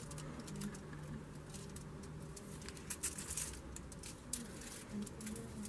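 Faint crinkling of aluminium foil and light clicks as gingerbread pieces are handled and set together, with a denser run of crackles about three seconds in.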